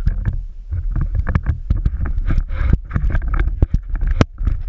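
Choppy water slapping against a small boat's hull, with irregular knocks and splashes over a low rumble.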